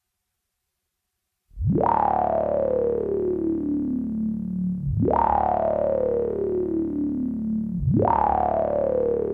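Access Virus synthesizer playing a repeating sweep effect. After a short silence, each note swoops up quickly, then glides down in pitch over about three seconds above a steady low drone, and the sweep sounds three times.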